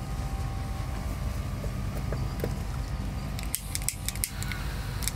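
A few small sharp clicks a little past halfway, from a lighter being worked to burn through the sewing thread on a stitched Dyneema rope splice. A steady low hum runs underneath.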